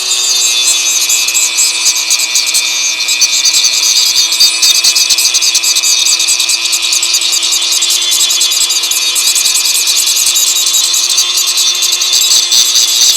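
Dremel rotary tool with a small cutting disc running at a steady high speed, a constant whine under a gritty grinding hiss, as the disc is worked around inside the rusty U-joint bores of a driveshaft yoke to clean them up.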